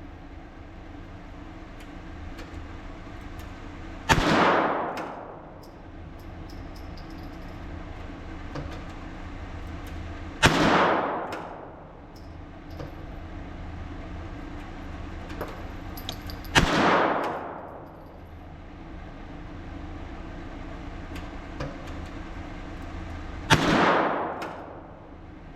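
Four single shots from a .22 LR firearm firing Norma Match ammunition, spaced about six to seven seconds apart, each with a short echoing tail. A steady low hum runs underneath.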